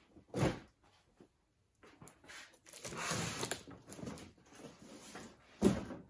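Cardboard shipping boxes being lifted and moved: a knock about half a second in, scuffing and rustling of cardboard in the middle, and a louder thump near the end.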